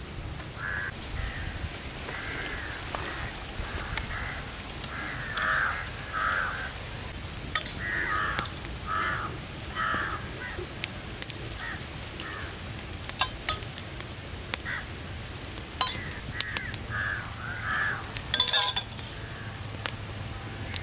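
Crows cawing repeatedly, with a few sharp cracks and pops from the wood fire under the spit-roasting chickens.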